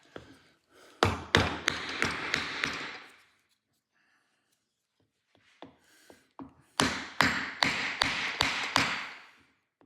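Hammer blows on a block of wood, tapping a slotted ABS reluctor ring down onto a drive axle. There are two runs of quick strikes, about three a second, with a pause and a few light taps between them.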